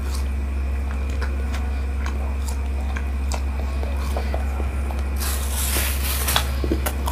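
A man chewing a bite of wadai untuk-untuk, a soft fried bread with peanut filling, with small mouth clicks scattered through. A brief rustle comes a little past five seconds in, over a steady low hum.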